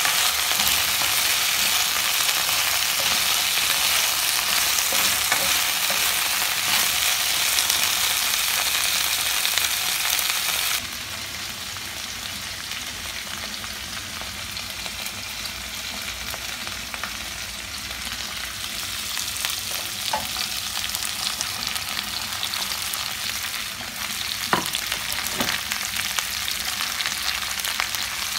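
Broccoli and cauliflower florets sizzling in hot oil in a wok while being stirred with a wooden spatula. About eleven seconds in the sizzle drops suddenly to a softer, steady hiss, with a few sharp knocks near the end.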